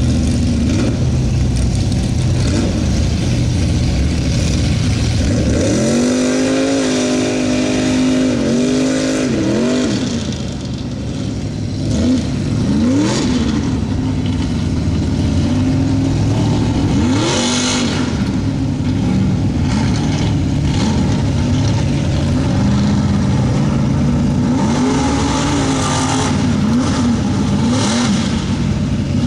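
Lifted mud truck's engine running loud and revving hard as it churns through a flooded mud pit, its pitch rising and falling again and again in quick blips. A brief rush of splashing near the middle.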